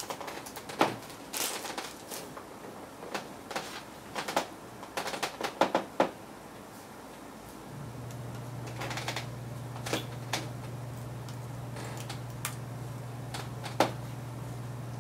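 Small clicks and taps of screws and metal parts being handled as the stock cooler is taken apart on a Radeon HD 6990 graphics card, busiest in the first six seconds. About eight seconds in a steady low hum comes in, with a few more taps over it.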